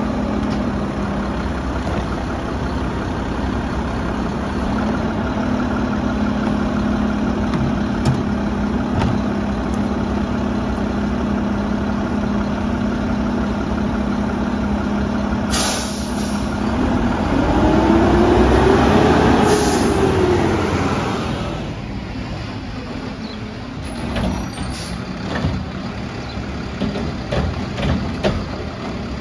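Mack LR garbage truck's engine running steadily, then a short air brake hiss about halfway through, followed by the engine revving up and back down over a few seconds. Scattered knocks near the end.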